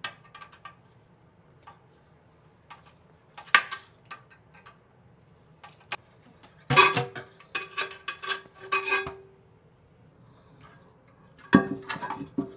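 Hand tools clinking and scraping on metal while a toilet's tank-to-bowl bolts are unscrewed: scattered single clicks, then busier runs of clinks with a faint ring, about two thirds of the way through and again near the end.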